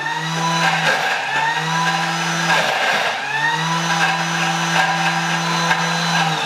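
Countertop blender motor puréeing avocado, chilli, coriander, olive oil and lime juice into smooth guacamole. It runs with a steady hum, drops out briefly about a second in and again after two and a half seconds, then runs steadily and winds down, falling in pitch, at the end.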